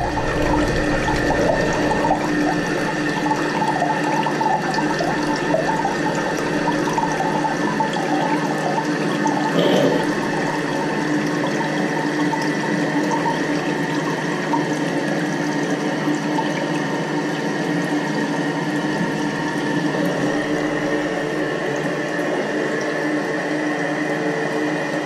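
Toilet tank refilling through its fill valve once the water supply is turned back on: a steady rush and hiss of water carrying a couple of held tones. There is a brief bump about ten seconds in.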